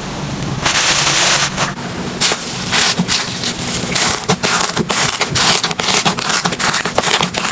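Slime being squeezed and pressed by hand, giving a dense run of quick sticky clicks and pops.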